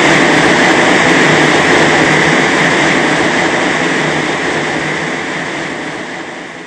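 Steady, loud rush of air from a wind-load test machine blasting a Trex composite fence panel at hurricane-force speed, with a strong hissing band in the middle of the range. The sound slowly dies away over the last few seconds.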